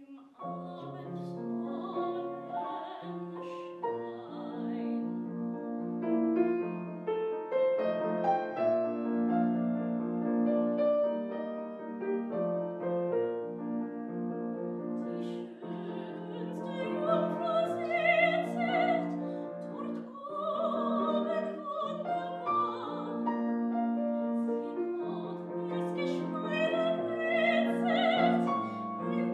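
A grand piano accompanying a German art song (Lied), entering right after a moment of silence, with a female classical singer's voice and its vibrato over parts of the passage.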